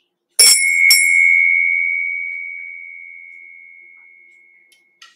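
Small brass hand bell struck twice about half a second apart, then ringing on one clear tone that slowly fades over about four seconds. It marks the end of the meditation sitting.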